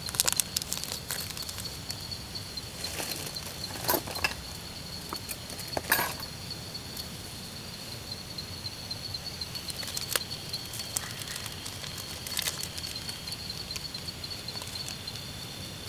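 Insects trilling steadily at a single high pitch, with scattered sharp clicks and taps, the loudest near the start and at about four and six seconds in.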